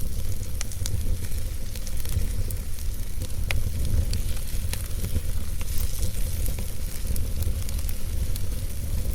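Campfire burning, with irregular crackles and pops over a steady low rumble; one sharper pop comes about three and a half seconds in.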